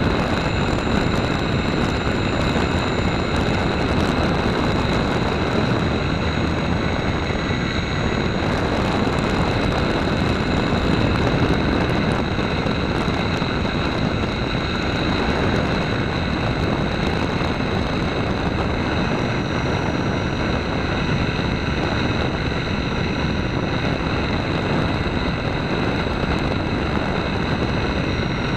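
Small RC model airplane's motor and propeller running steadily in flight, picked up by the onboard camera, with a constant high whine over the rush of air.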